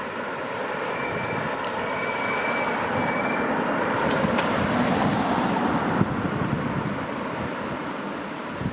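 A train running through the station, its rolling noise building to a peak about five or six seconds in and then fading. A faint high whistle sounds early on, and there are a few sharp clicks.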